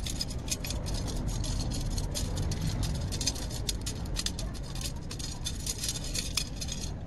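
Steel bicycle spokes clinking and rattling against one another and against the hub flange as they are threaded through the hub holes by hand: many light, irregular metallic clicks, with a steady low rumble underneath.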